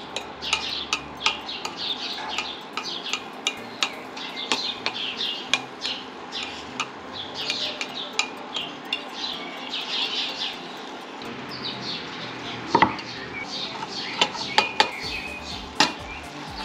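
A utensil scraping and clicking against a frying pan in quick, repeated strokes as eggs with parsley are stirred in butter, with a few sharper knocks in the second half.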